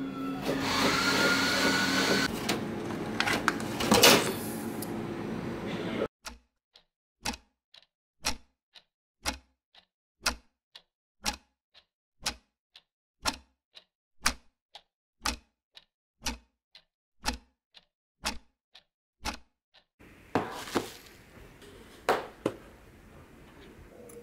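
Coffee vending machine running: a steady hum with a rising whine and a loud knock about four seconds in. It then gives way to a clock-like ticking, about one tick a second with softer ticks between, over silence. Near the end, faint room noise with a few knocks returns.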